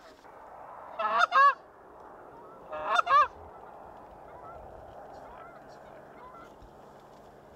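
Canada geese honking: two loud bursts of quick honks, about a second and three seconds in, then fainter scattered honks.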